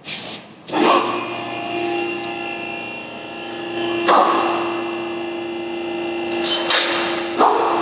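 Two-post vehicle hoist raising: its electric hydraulic pump motor hums steadily, with a few sharp metallic clanks from the safety locks as the arms go up.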